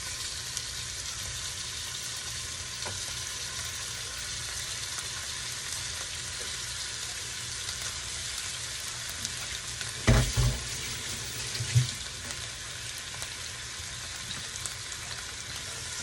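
Chicken pieces frying in hot oil with ginger and onion: a steady sizzle. Two short, louder thumps come about ten and twelve seconds in.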